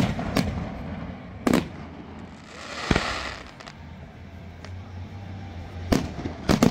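Aerial fireworks shells bursting overhead: sharp booming bangs at irregular intervals, with a hissing crackle swelling around the middle and a close pair of bangs near the end.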